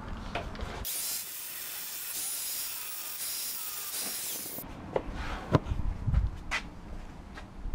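Angle grinder's abrasive disc briefly grinding out the crack channel in an old steel axe head: an even, high hiss for about four seconds that starts and stops abruptly. A few sharp clacks follow as the grinder is set down on the bench.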